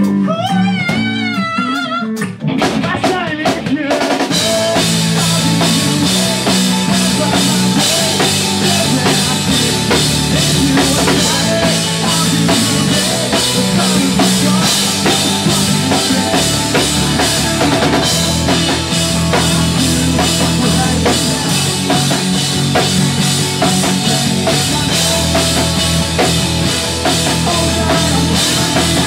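Live pop-punk band playing loud: a lone wavering lead line at first, then drum kit, guitars and bass come in together about two and a half seconds in and drive on with a steady beat.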